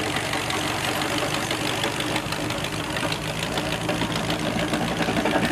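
Flathead V8 truck engine fitted in a 1952 Ford 8N tractor, running steadily as the tractor drives with its rear blade.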